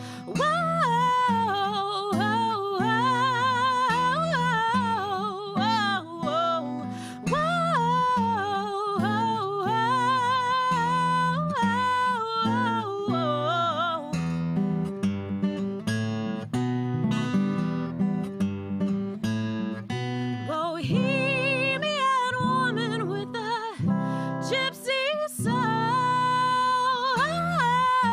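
A woman singing an original folk-style song to her own acoustic guitar strumming. Midway through, the voice drops out for a short strummed guitar break, then the singing comes back in.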